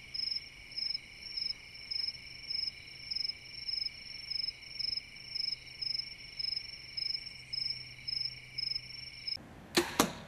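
Evening insect chorus in a field: one insect chirps in a regular rhythm about twice a second over a steady high buzz of other insects. The chorus cuts off about nine seconds in, and a few sharp thwacks follow.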